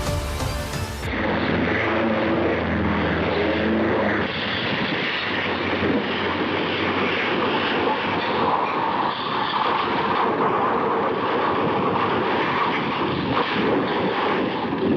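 Aircraft engine running steadily, recorded on a low-quality amateur camera, after a short stretch of music that cuts off about a second in.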